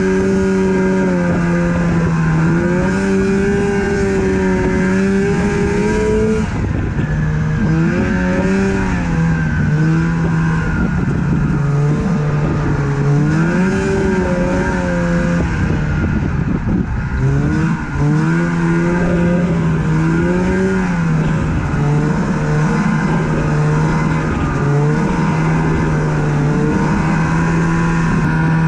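Snowmobile engine running under way, its pitch rising and falling again and again with the throttle, over a steady rushing noise.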